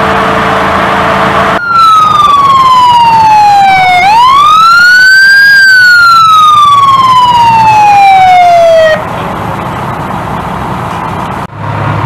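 Fire engine siren wailing loudly, cutting in abruptly about a second and a half in: its pitch falls, sweeps quickly back up, then falls slowly again before it cuts off near three quarters of the way through. Steady engine noise runs before and after it.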